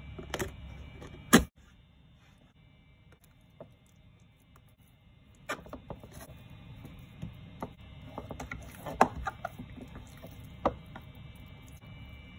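A plastic lid snapping onto a square plastic food tub with one sharp click. After a few quiet seconds, a wet hand stretching and folding sticky sourdough dough inside the tub, with small slaps and irregular clicks against the plastic.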